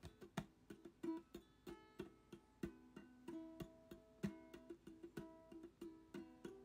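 Quiet background music on a plucked string instrument, a light run of picked notes, a few a second.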